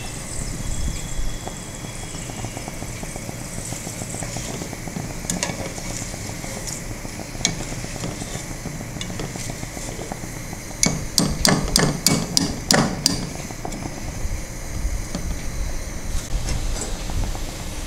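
Hot oil sizzling in a kadhai as fried grated potato is lifted out with a wire frying strainer. A bit past the middle comes a quick run of about eight sharp metal taps from the strainer, shaking off the oil.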